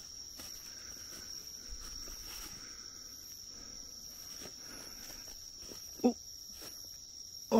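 Night insects singing a steady high-pitched trill, with faint footsteps and rustling underneath.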